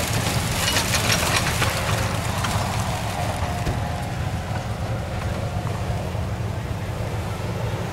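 Four-door Jeep Wrangler's engine working as it climbs a loose pea-stone hill, tires spinning in the stone, under a steady low wind rumble on the microphone.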